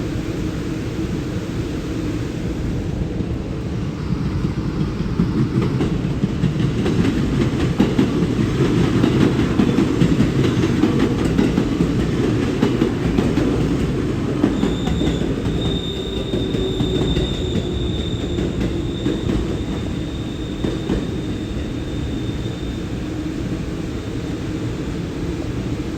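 Train running along the platform, a steady rumble with rapid clicking of wheels over the rails, loudest about a third of the way through. About halfway through a high, steady wheel squeal sets in and holds for several seconds before fading.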